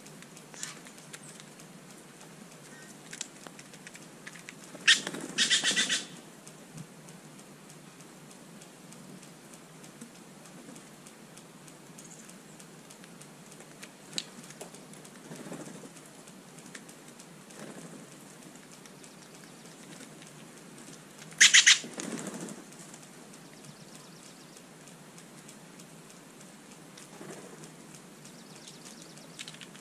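Steller's jays flying in and out close to the ground, with two short loud bursts of wing flapping, about five seconds in and again about twenty-one seconds in. Between them there are only a few faint ticks.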